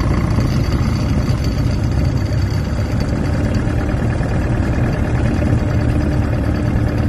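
Cessna 182's SMA SR305 Jet-A diesel engine running at low power, heard from inside the cabin, as the aircraft rolls out on the runway after landing.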